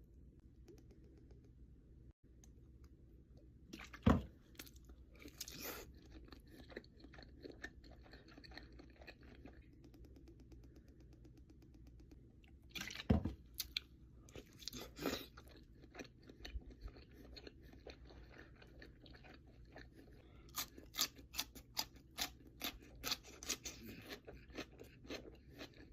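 Close-miked chewing of sushi with wet, crunchy bites, settling near the end into steady chewing about twice a second. Two sharp clicks stand out, about four seconds in and near the middle, over a faint steady hum.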